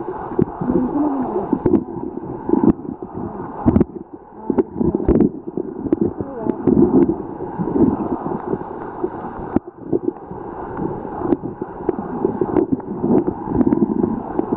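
Muffled underwater gurgling and rushing of flowing river water picked up by a submerged camera, with a scatter of sharp clicks and knocks.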